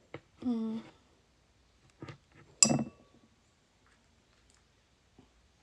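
Tableware clinking during a meal: one sharp clink with a brief ring about two and a half seconds in, after a softer tap. Before it there is a short hummed "mm" from the eater.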